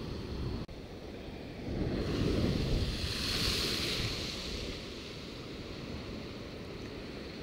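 Rough-sea waves breaking against a sea wall, one wave surging and hissing louder from about two to four seconds in, with wind rumbling on the microphone.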